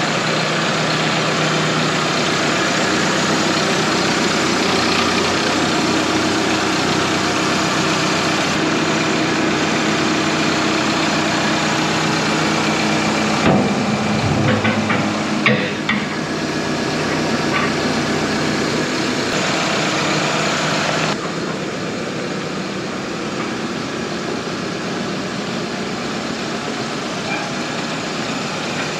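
Heavy farm machinery engine running steadily. A few knocks and clatters come about halfway through, and the engine sound drops a little in level about two-thirds of the way in.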